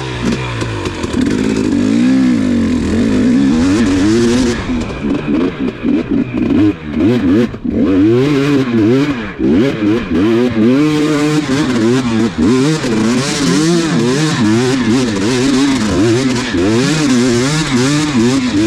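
Dirt bike engine being ridden on a trail, the throttle constantly opened and rolled off so its pitch rises and falls many times in quick succession, with some clattering over the rough ground.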